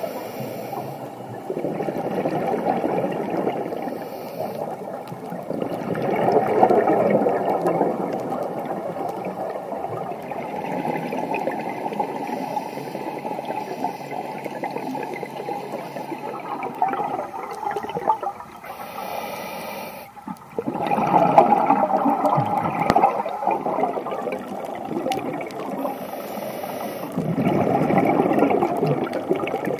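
Scuba diver's exhaled bubbles and regulator breathing recorded underwater, rising in slow surges a few seconds apart over a steady underwater hiss.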